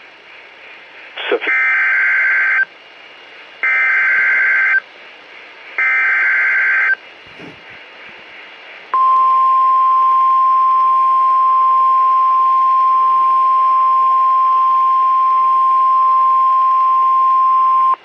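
Emergency Alert System SAME header played through a Kaito weather radio's speaker: three warbling data bursts about a second long each, a second apart. Then, about nine seconds in, the steady single-pitched NOAA Weather Radio 1050 Hz warning alarm tone starts and holds. Together they mark the start of a new severe weather alert.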